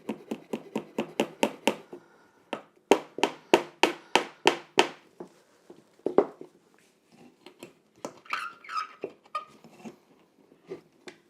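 A quick series of sharp, light taps, about four a second, in two runs of a couple of seconds each, the second louder. Then come a few scattered knocks and handling sounds.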